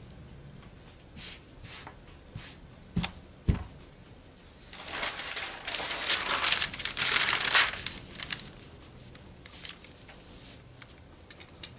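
Paper sewing pattern rustling and crinkling as it is handled and laid flat on the fabric, loudest for a few seconds in the middle. Before it come two short knocks half a second apart.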